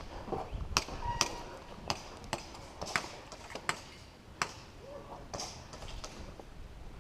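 Irregular sharp cracks of game-gun shots, about eight over several seconds, some distant, from a pistol-and-shotgun skirmish game, with faint movement noise between them.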